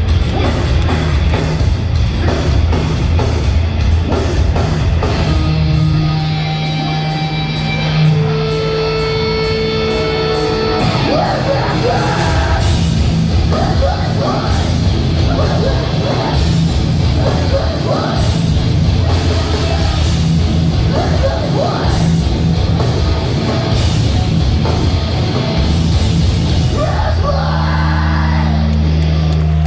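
Live metalcore band playing loud: distorted guitars, bass and drums with sung and shouted vocals. The band holds one chord for a few seconds about six seconds in, then the vocals come back over the full band.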